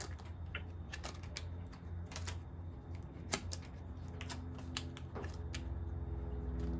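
Irregular light clicks and taps of a screwdriver and screws being worked out of a freeze dryer's metal back panel, over a steady low hum.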